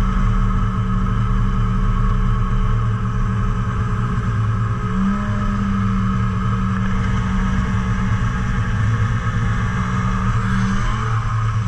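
Yamaha snowmobile engine running steadily under way, its pitch stepping up slightly about five seconds in and easing back down near the end.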